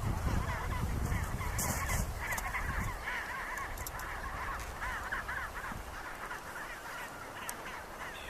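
Adélie penguin colony calling, many harsh overlapping calls going on throughout. A low rumble runs under the first three seconds.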